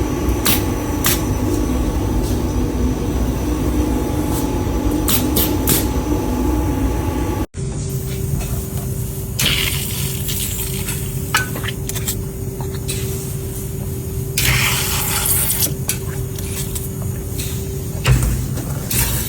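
Factory machinery running with a steady hum and a few sharp clicks; the sound cuts about seven seconds in to another steady machine hum, broken twice by bursts of hissing.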